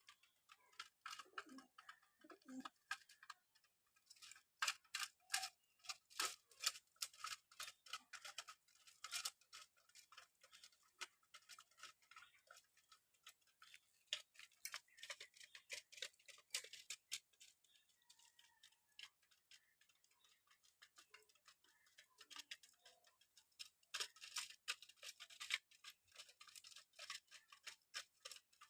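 Pigeons pecking at food: a patter of light, quick taps and clicks of beaks on a hard surface, coming in several dense runs with sparser stretches between.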